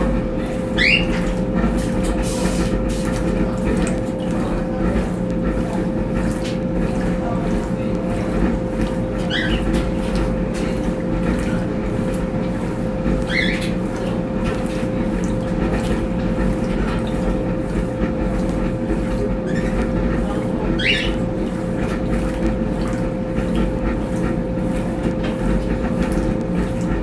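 Brastemp Tira Manchas Pro 12 kg top-loading washing machine running with a steady motor whine and low hum. Four brief rising high-pitched chirps come through at intervals of several seconds.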